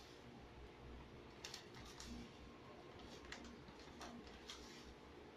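Faint, scattered clicks and light scrapes of a metal spoon against a tin of cocoa powder as it is scooped into a mesh sieve, about five ticks over a few seconds above a quiet room.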